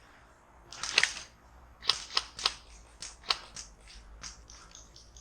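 A run of irregular sharp clicks and snaps, the loudest about a second in, then a cluster of them between two and three and a half seconds in.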